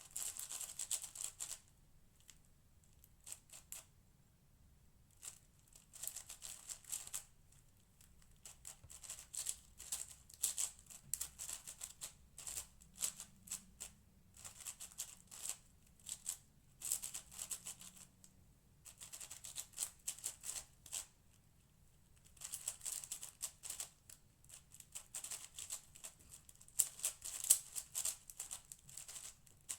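A Cosmic Shadow M 6x6 speedcube being turned fast in a timed solve: rapid clicking and clacking of its layers, in bursts with short pauses between them.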